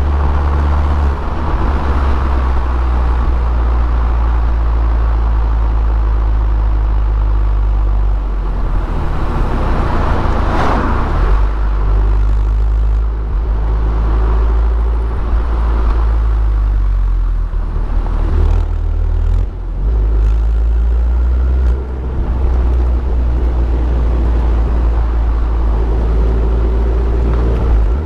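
Abarth Punto Evo's turbocharged 1.4-litre four-cylinder engine, with the EsseEsse kit, droning steadily at low revs while driving. The drone shifts in pitch several times as the revs change, with a brief swell of wider noise about ten seconds in.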